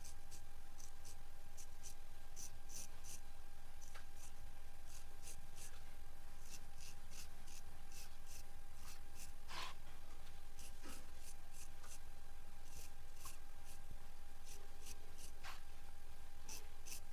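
A straight razor scraping through wet hair on a scalp during a head shave: short, crisp strokes in quick irregular runs, with one stronger rasp just under halfway through. A faint steady tone and a low hum run underneath.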